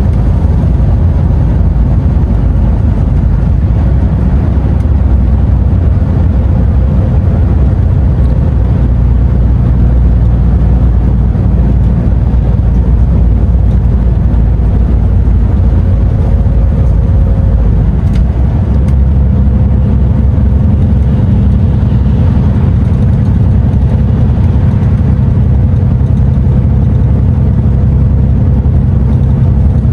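DAF XF truck's diesel engine and road noise heard from inside the cab while driving, a steady low drone; the engine note changes about two-thirds of the way through.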